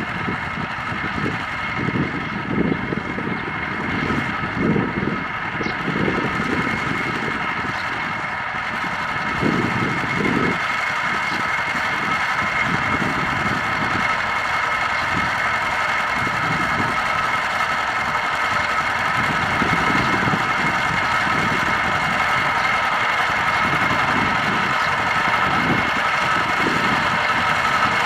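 Two-wheel walking tractor's single-cylinder diesel engine running steadily while its steel cage wheels churn through wet paddy mud, growing gradually louder as it comes closer.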